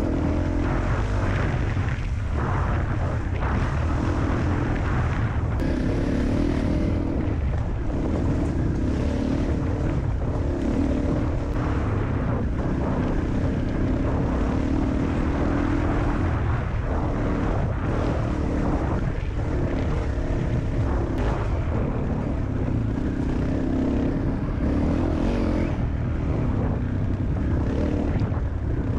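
Honda CRF250L's single-cylinder four-stroke engine running under way on a gravel and rock trail, its note rising and falling a little with the throttle.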